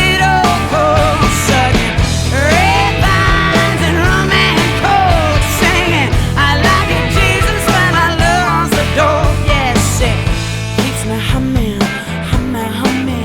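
Rock music with a full band: a steady low bass-and-drum bed under a wavering lead melody line.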